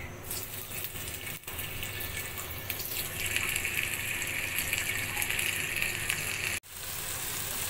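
Thin marinated chicken pieces sizzling in hot oil on a cast-iron tawa as they are laid in one by one. The sizzle turns brighter about three seconds in, with two brief breaks.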